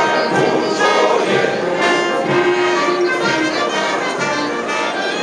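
Music with many voices singing together over instruments.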